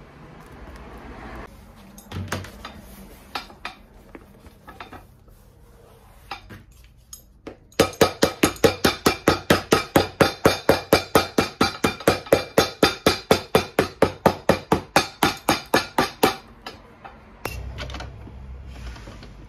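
Cobbler's hammer beating the leather footbed of a boot, a fast even run of blows at about five a second lasting some eight seconds, starting about eight seconds in. A few scattered clicks and taps come before it.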